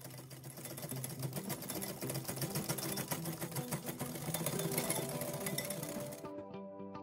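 Wire balloon whisk beating egg yolk and butter for hollandaise in a glass bowl: a fast clatter of the wires against the glass that stops about six seconds in. Background music plays under it.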